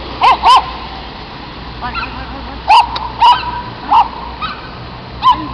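A dog barking: short, high barks, two in quick succession near the start, then four more spread over the following seconds.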